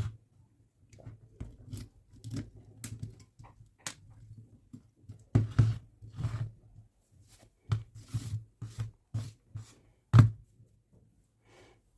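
Irregular clicks, scrapes and knocks of hand work on a Dyson V15 battery pack as its BMS circuit board is pried out with a plastic tool. A sharp knock about ten seconds in is the loudest.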